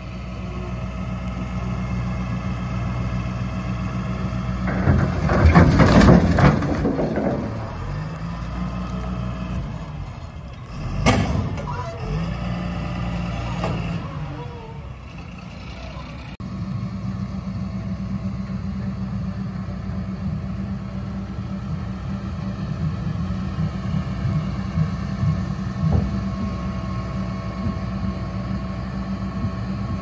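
Dump truck engine running steadily while its raised bed tips a load of red oak and pine logs. The logs slide and crash to the ground, loudest about five to seven seconds in, with another sharp thud around eleven seconds.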